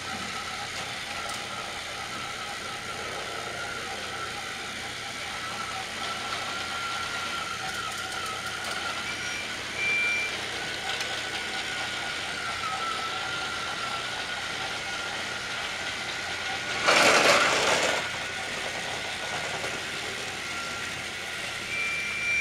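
Motorized TrackMaster toy trains running on plastic track, their small battery motors giving a steady whine that wavers slightly in pitch. Short high beeps come about ten seconds in and again near the end, and a loud rushing burst about a second long comes about seventeen seconds in.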